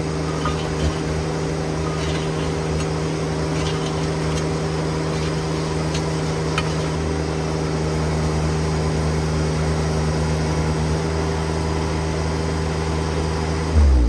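Baumalight TRL620D mini skid steer's engine running steadily under load while its auger attachment drills a fence-post hole in rocky ground. Right at the end the engine note drops.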